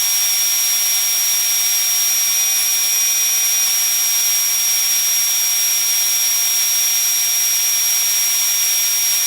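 Combine harvester running at work: a steady, high-pitched mechanical whine and hiss with several constant high tones and little low rumble.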